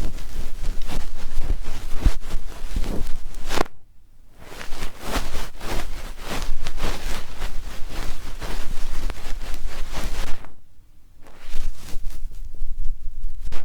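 Ear pick scraping and rubbing close against a microphone as an ASMR ear-cleaning trigger: a dense crackling scratch in long strokes, with short pauses about four and eleven seconds in.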